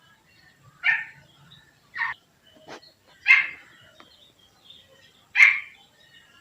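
Quail calling: short sharp calls, four loud ones and a fainter one, one to two seconds apart.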